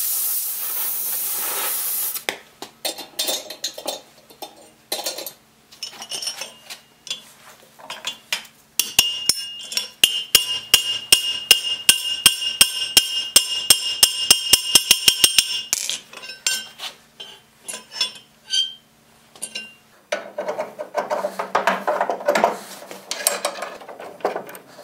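Gas torch hissing for about two seconds, then scattered metal clinks, then a ball-peen hammer striking fast on a red-hot rivet over the anvil, about four ringing blows a second for some seven seconds, as the rivet head is peened over. More clinks and rougher metal handling noise follow near the end.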